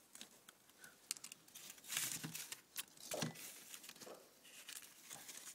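Faint handling noise from plastic cable ties being fiddled with: scattered small clicks and a brief rustle about two seconds in.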